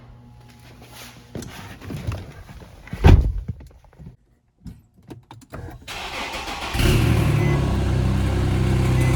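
A few knocks and a loud thump about three seconds in, then a 1995 Ford Mustang GT's 5.0-litre V8 cranks, starts about six seconds in and runs steadily before cutting off suddenly. The owner believes the engine is running lean and down on power.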